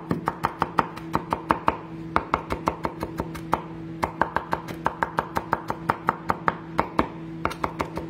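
Chef's knife chopping green pepper on a wooden cutting board: quick, even strokes about five or six a second, in runs broken by brief pauses, over a steady low hum.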